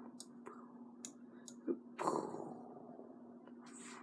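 A few faint clicks at a computer over a steady low hum, with one sudden louder noise about two seconds in that fades away over about a second.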